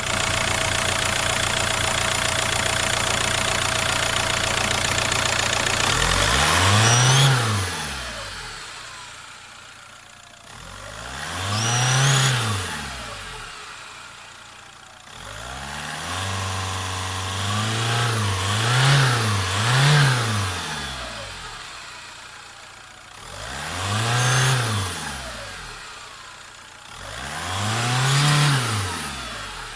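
VW Golf Mk IV 1.9 TDI (ARL) four-cylinder diesel idling steadily, then revved in short throttle blips, one every five seconds or so with two in quick succession in the middle. Each rev rises and falls back to idle, with the GT1749VB turbo's whistle on top.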